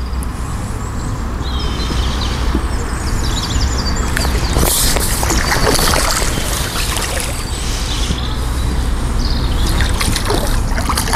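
A small hooked ghost carp splashing and thrashing at the water surface as it is played in on the pole, with clusters of splashing about four seconds in and again near the end. Birds chirp in the background.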